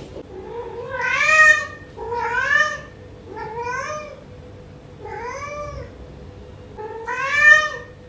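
Domestic cat meowing five times in a row, each call rising and then falling in pitch.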